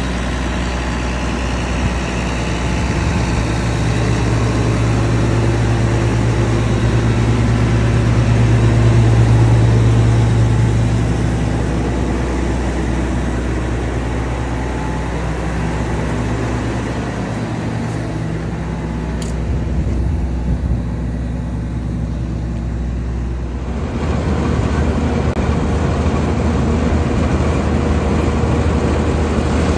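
International Harvester 1460 Axial-Flow combine's diesel engine running steadily, with a low hum that swells for a few seconds and then eases. About three-quarters of the way through it cuts to the combine working in standing corn, a denser, noisier machine sound.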